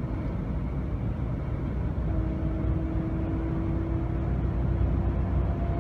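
Steady low road rumble of a vehicle driving at highway speed, heard from inside the cab. About two seconds in a faint steady hum joins it and holds nearly to the end.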